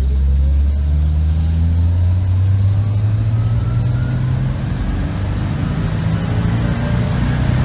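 1985 Dodge Ram D100's 225 cu in slant-six engine at full throttle, heard from inside the cab as the truck accelerates hard. Its pitch rises slowly for the first four seconds or so, then levels off.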